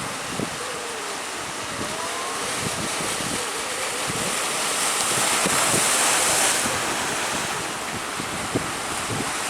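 Breaking surf with strong wind buffeting the microphone; the hiss of the wash swells to its loudest between about five and six and a half seconds in, then eases.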